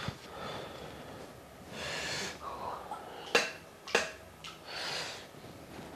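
A person breathing hard and sniffing through the nose, with two loud breaths about two and five seconds in. Two sharp clicks come between them, as a fuchka is handled and a spoon is worked in a bowl.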